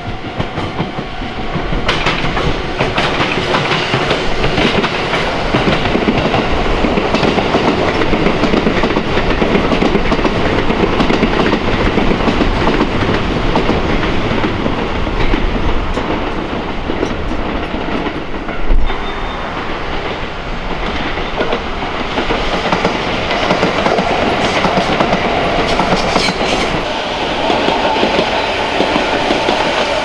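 Electric trains running past on the tracks below: a continuous rumble with the clickety-clack of wheels over rail joints. One sharp, loud knock comes about two-thirds of the way through.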